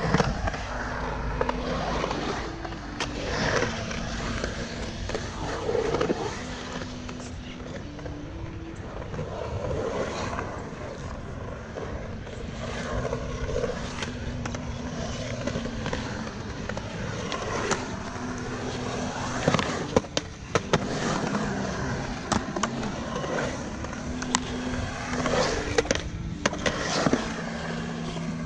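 Skateboard wheels rolling and carving over a concrete bowl, a continuous rolling rumble broken by occasional sharp clacks of the board and trucks.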